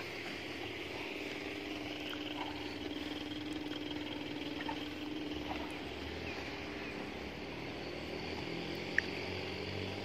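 A steady mechanical hum under a faint noisy background, with one sharp click near the end.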